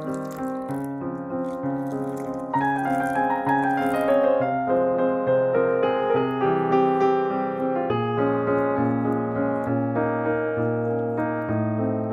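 Background piano music: a gentle melody of single notes over steady chords.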